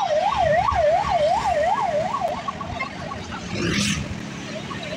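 A fast-warbling siren, its pitch rising and falling about three times a second. It is loud for the first two seconds, then drops away and comes back faintly near the end, over road traffic rumble. A short hiss sounds about four seconds in.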